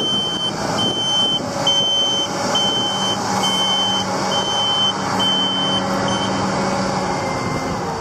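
Link-Belt RTC-80100 rough-terrain crane running, with its high-pitched warning alarm beeping a little more than once a second until it stops about six seconds in.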